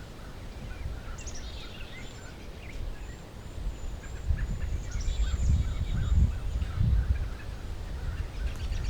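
Wild birds calling: thin high chirps and short calls, ending in a fast rattling trill, over a low rumble of wind on the microphone.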